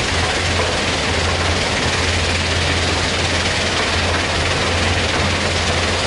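Heavy diesel machinery running steadily: a Kobelco hydraulic excavator working beside a running Rubble Master mobile stone crusher. A constant low hum lies under a broad, even rush of machine noise.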